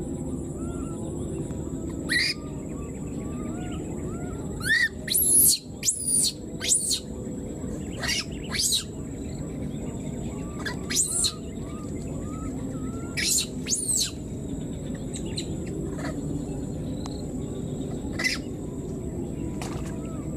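Baby macaque giving short, shrill squeaking calls, about a dozen scattered irregularly, some in quick pairs, with softer chirps in between over a steady low hiss: separation calls of an infant left without its mother.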